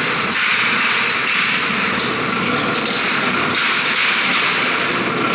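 Manual gear-drive rolling shutter's gearbox and crank handle clattering as it is cranked round, winding up and tightening the shutter's springs. The dense metallic noise changes about once a second.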